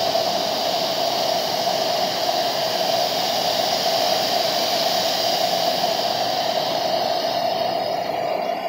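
Compressed-air paint spray gun hissing steadily as it lays clear coat onto a car body, over a steady drone. The hiss fades out shortly before the end while the drone carries on.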